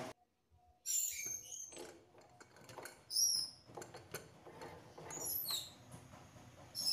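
Aluminium pressure cooker being shut and set on a gas stove burner: metal clinks and knocks as the lid and handles are pressed down, with short high chirp-like squeaks every second or two.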